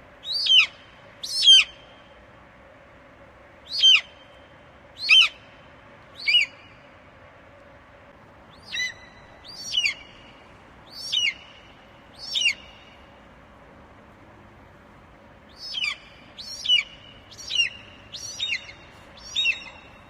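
Eagle calling: a series of short, high, piercing cries, each dropping quickly in pitch, given in clusters of two to five with pauses of a second or two between clusters.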